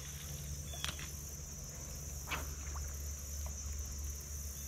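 Steady high chirring of crickets over a low, steady rumble, with a faint click about a second in and a brief falling swish about two seconds in.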